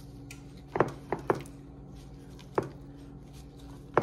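Raw chicken tenders being flipped by a gloved hand and slapped down onto a platter: a few sharp, irregular taps, three close together about a second in and another two later, over a steady low hum.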